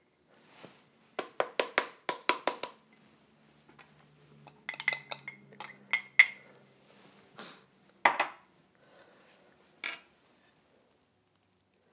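A spoon knocking and scraping grated Parmesan out of a small glass into a stainless-steel Thermomix mixing bowl: a quick run of knocks about a second in, then several ringing metallic clinks in the middle. A duller knock follows, then one last sharp clink near the end.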